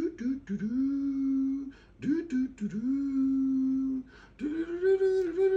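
A person singing or humming three long held notes, each sliding up at the start and then holding a steady pitch, with a few short clicks between the notes.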